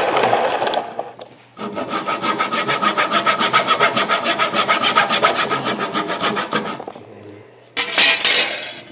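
Small hand saw cutting through the stitched leather cover of a cricket ball in quick, rapid rasping strokes, about five a second. It pauses briefly about a second in, then gives a short final burst of strokes near the end.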